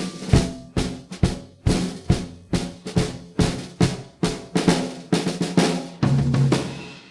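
Layered drum percussion beating a steady rhythm of about two strikes a second, ending in a longer, lower ringing hit that fades away near the end.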